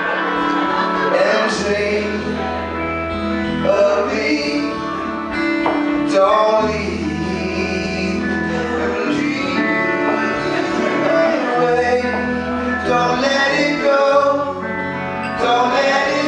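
Live band playing a song: strummed acoustic guitar and electric guitar under low held bass notes, with men singing together at one microphone.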